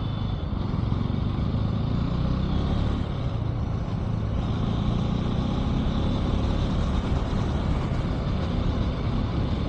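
KTM motorcycle engine running steadily under way, with road and wind noise.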